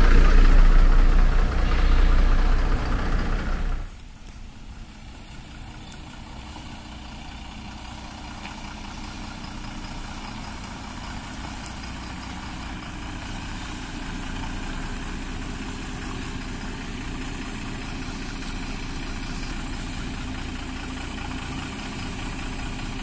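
Tata lorry's diesel engine running, loud and close for the first four seconds, then much quieter and steady after a sudden drop, as the container lorry pulls around a tight hairpin bend.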